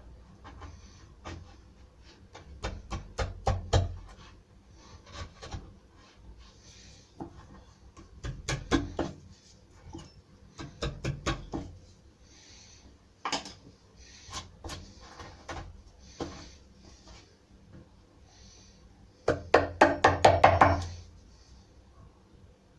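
A wood chisel being struck to chop a recess into a timber door or frame: bursts of rapid knocks, several a second, with short pauses between them. The longest and loudest burst comes near the end.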